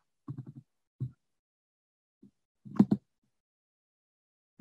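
Near silence broken by a few short murmured sounds from a man's voice, the loudest a little under three seconds in. Between them the sound drops out completely, as a video call's noise suppression does.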